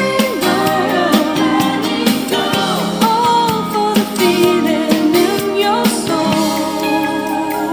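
Pop song with a sung melody, played back through a Logitech Z120 USB computer speaker with bass boost on and picked up by a microphone; clear mids and treble but little deep bass.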